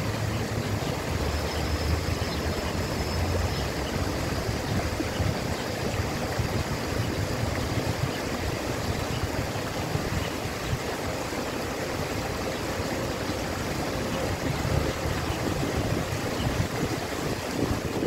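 Water falling and splashing down an ornamental rock waterfall, a steady rush with no breaks.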